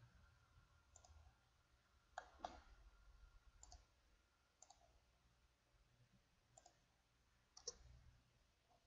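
Faint computer mouse clicks, about seven scattered at uneven intervals over quiet room tone.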